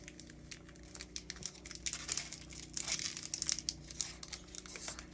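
Pokémon card booster pack's foil wrapper crinkling and tearing as it is worked open by hand, in quick irregular crackles that are thickest in the middle.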